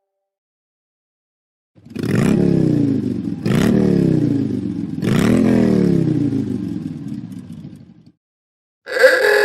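Apple iOS classic "Motorcycle" ringtone: a recorded motorcycle engine revving three times, each rev jumping up and then falling away, about a second and a half apart, the last one dying down slowly. Another ringtone starts right at the end.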